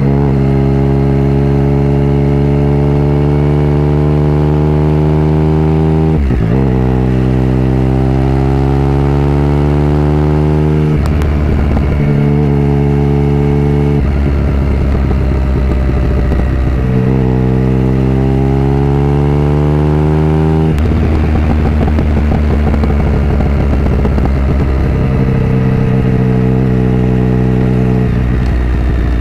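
Triumph Sprint GT's three-cylinder engine through a Delkevic aftermarket exhaust, heard close to the silencer while riding. The note climbs in pitch under acceleration and drops sharply at each gear change, four times, then holds at a steadier cruise toward the end.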